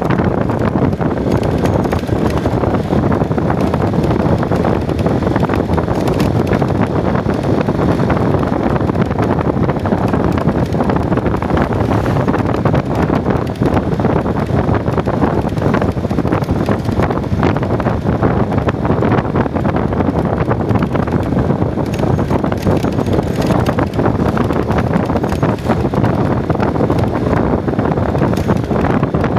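Steady wind buffeting on the microphone of a moving vehicle, with the vehicle's running noise underneath.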